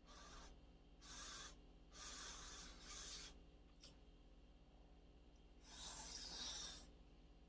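Faint breathy puffs of air from a person blowing on and eating a spoonful of hot kimchi fried rice: three short puffs about a second apart, then another near the end.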